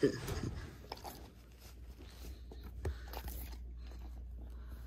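Faint scattered clicks, crunches and scrapes close to the microphone as an opossum and a dog shift against a wire cage, with one sharp click right at the start.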